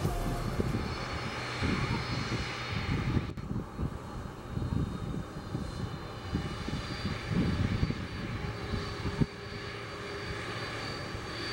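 Jet engines of a Boeing 767-300 freighter running as it rolls along the runway: an uneven low rumble, with a steady high whine coming in during the latter part.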